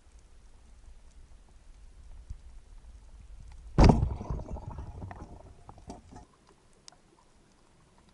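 Speargun fired underwater: one sharp, loud crack a little under four seconds in, followed by a fading clatter and clicks for about two seconds. Faint scattered ticks and crackling of the sea before and after.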